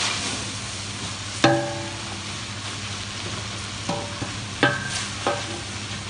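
Wooden spoon stirring sliced onions and leeks in a large steel pot, with a steady sizzle as the onions begin to caramelize without oil. The spoon knocks against the side of the pot four times, each knock ringing briefly.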